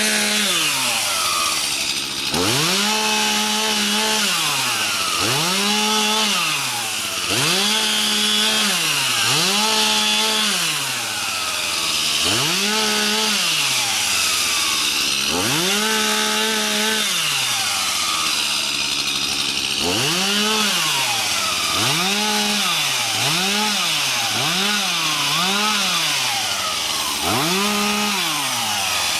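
Stihl MS 251 C two-stroke chainsaw limbing small branches. The engine revs up to a high pitch for a second or so at a time and drops back to idle between cuts, more than a dozen times, with a quicker run of short revs about three-quarters of the way through.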